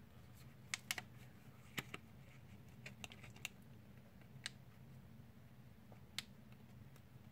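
Faint, scattered clicks and taps of a Fimi TX10 controller's hard plastic housing being handled and fitted together by hand, about half a dozen spread over the stretch, over a low steady hum.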